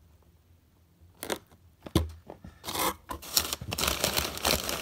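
Packaging being handled: a short scrape and a dull thump of cardboard, then steady crinkling and rustling of packing material from about three seconds in.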